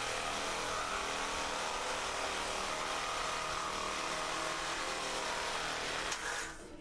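Angle grinder running steadily, grinding out a bolt at the rim joist; it cuts off near the end.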